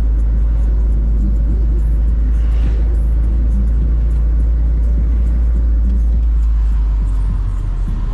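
Steady low rumble of a moving vehicle, heard from inside it, with faint music in the background.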